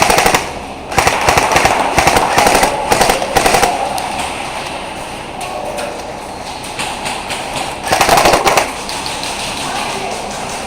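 Airsoft gun firing rapid automatic bursts of clicking shots: a short burst at the start, longer bursts from about one to three and a half seconds in, and another burst about eight seconds in. It is suppressive fire to keep the opponents' heads down.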